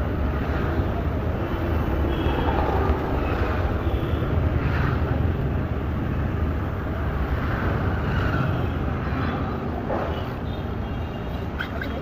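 Steady low rumble of street traffic, with faint, indistinct voices now and then.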